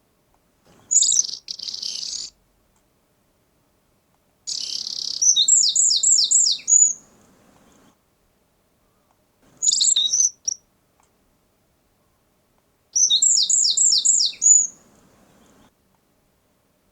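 A songbird singing in four separate high-pitched phrases with silence between them. Two of the phrases open with a rough burst, then run through about five quick repeated falling notes and end on a single final note.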